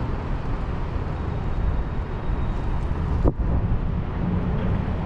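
Steady low rumble of a vehicle on the move, with one sharp knock a little past three seconds in.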